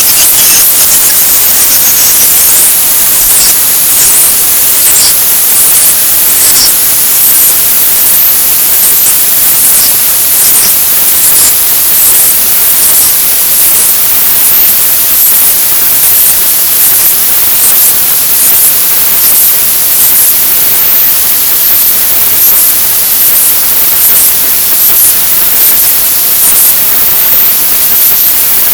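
Loud, harsh static-like hiss: a pop song pushed through extreme treble boost until it is mostly high-pitched noise, with a faint regular beat pulsing through it.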